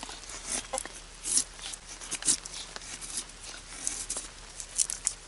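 Morakniv Kansbol knife blade shaving curls down a tough, long-dried pine stake to make feather sticks: repeated short scraping strokes of steel on wood.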